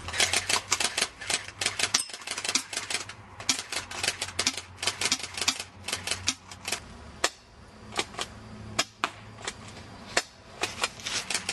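Airsoft guns firing: many sharp snapping shots in quick, irregular volleys. They come thickly for the first half and more sparsely toward the end.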